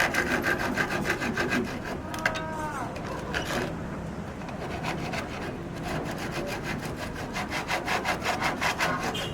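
Wood being worked by hand with rapid, regular scraping strokes in runs of a few seconds with short pauses, with a brief falling squeak a couple of seconds in.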